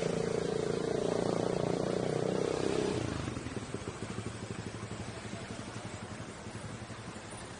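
Car engine running under way with road noise; the engine note is loud for the first three seconds, then drops away as the throttle eases, leaving a quieter running sound.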